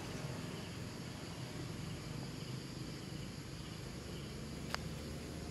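Outdoor ambience: a steady low rumble under faint insect chirring, with a single sharp click near the end.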